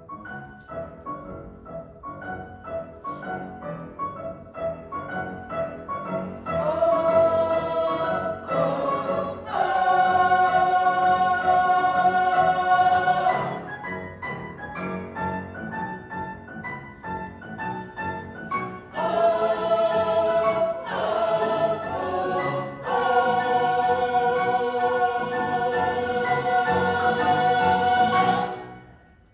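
A mixed choir of high-school voices singing with piano. It builds from soft passages into loud held chords twice, and the music stops near the end.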